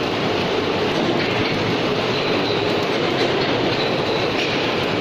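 Welding arc of a six-axis pipe-welding robot, a steady, unbroken crackling hiss as the robot lays a continuous weld.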